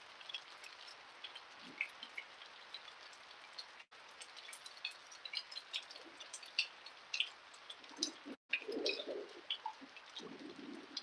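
Steady rain hiss with frequent individual drips and patters close by. The sound cuts out for an instant twice.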